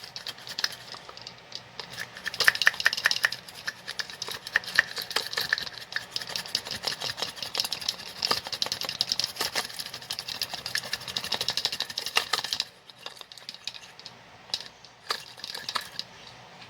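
Hand-press onion chopper being pumped over and over, its plunger and blades clacking rapidly against a chilled marshmallow pie that won't break. The clacking thins to scattered clicks about thirteen seconds in.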